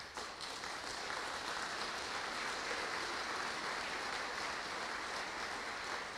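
Applause from a small seated audience, starting abruptly and holding steady.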